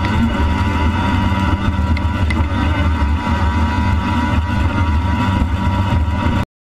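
Yamaha Waveblaster jet ski's two-stroke engine running hard at speed, a steady loud drone mixed with rushing water and wind. It cuts off suddenly near the end.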